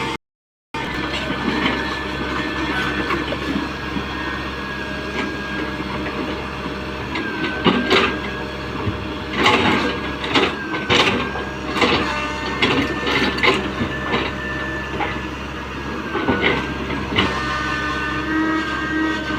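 Tata Hitachi 120H excavator working: its diesel engine runs steadily under a high, wavering hydraulic whine. From about seven seconds in come repeated sharp clanks and knocks of the bucket and its load. The sound cuts out for half a second right at the start.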